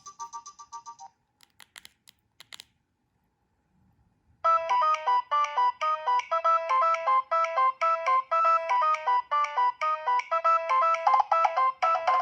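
Nokia 2125i ringtones playing through the phone's speaker. One tune fades out in the first second, a few faint clicks follow, and after about two seconds of near silence a new tune starts: a fast run of bright, short repeated notes.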